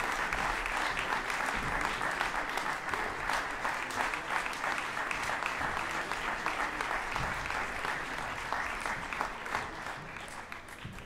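Audience applauding, many hands clapping steadily, dying away near the end.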